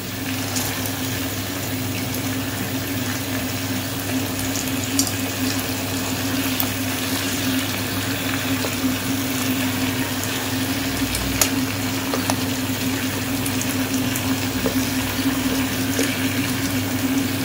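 Masala-coated chicken pieces simmering and sizzling in their juices in a nonstick kadai over a low flame while tongs turn them over, with a few light clicks of the tongs against the pan. A steady low hum runs underneath.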